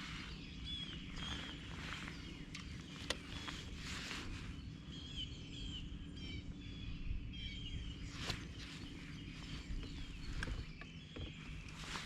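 Birds singing in short chirping phrases over a low steady hum, with a few sharp clicks.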